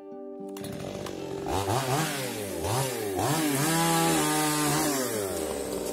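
Two-stroke gasoline chainsaw engine revved in several quick blips, then held at high revs for about a second and a half before dropping back near the end.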